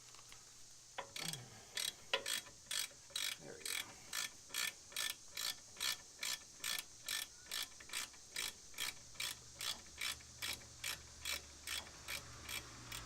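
Hand ratchet with a 3/8 hex bit backing out a brake caliper bolt, clicking in a steady, even run of about two to three strokes a second after a few scattered clicks at the start.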